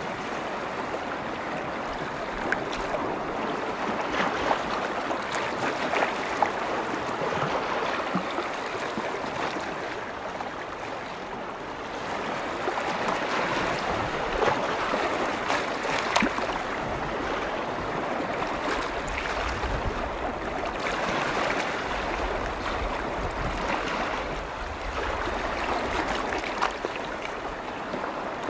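Waves washing on a lake shore: a steady wash that swells and ebbs slowly, with small sharp splashes now and then.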